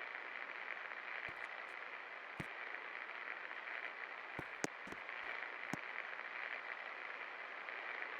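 24-inch Best Electric Works Classic ceiling fan running, giving a steady hiss, with a few sharp clicks in the middle, the loudest about halfway through.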